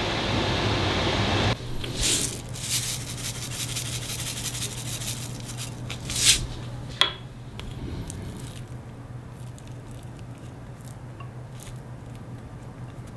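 A steady rushing kitchen noise cuts off sharply about a second and a half in. After that come soft scrapes, rustles and a few sharp clicks over a low steady hum, as cooked stir-fry is served into a ceramic bowl and topped with sesame seeds and chopped green onion.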